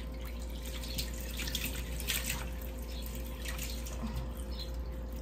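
Water running from a wall tap and splashing through hair into a basin as conditioner is rinsed out, with irregular splashes as hands work the hair.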